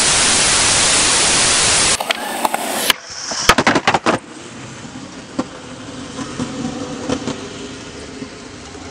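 Loud, even TV-static hiss that cuts off abruptly about two seconds in. It is followed by a quick run of sharp skateboard clacks and then the faint, steady roll of skateboard wheels on concrete.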